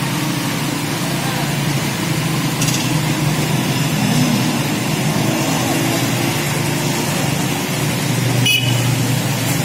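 Traffic on a flooded road: motorcycle and car engines running as the vehicles drive slowly through standing water, over a steady wash of noise. A brief click near the end.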